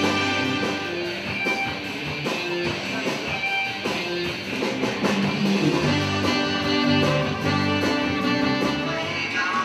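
Background music led by guitar, with held chords and a drum beat.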